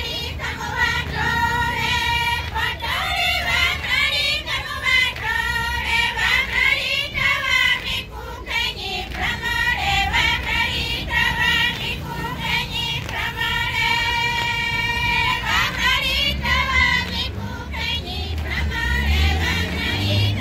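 Group of Kayapo women singing together in long, high held notes with a wavering pitch. The phrases break off briefly about eight seconds in and again near the end.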